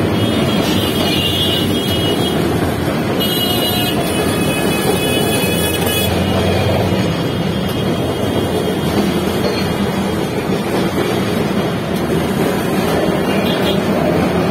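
Steady running noise inside a moving Kolkata tram car, mixed with street traffic through its open windows. A high thin whine sounds on and off during the first six seconds or so.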